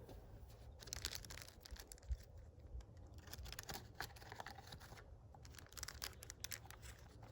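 Faint, intermittent crinkling and rustling with light clicks, like a wrapper or cloth being handled.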